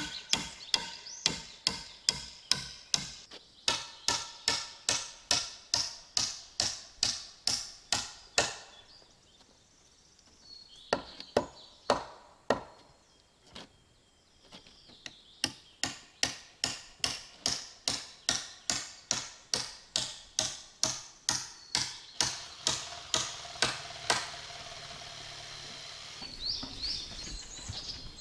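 Rapid, even blows of a hand tool, about three a second, in two long runs with a pause between them; they stop a few seconds before the end.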